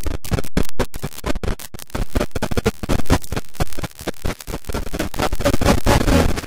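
A music recording breaking up into choppy, stuttering noise, cut by many brief dropouts that come thickest in the first two seconds: the skipping of damaged CD audio.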